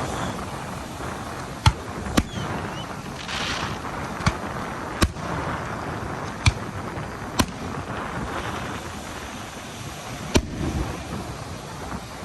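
Fireworks going off: about seven sharp bangs at uneven intervals over a steady background rumble.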